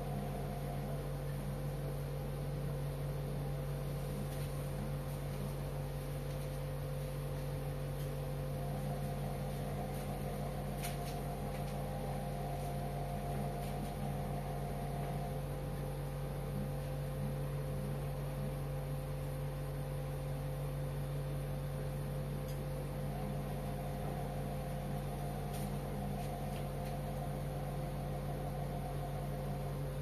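Indesit front-loading washing machine in its wash cycle, the drum turning the laundry with a steady motor hum. A fainter higher whine comes and goes every several seconds as the drum works the load.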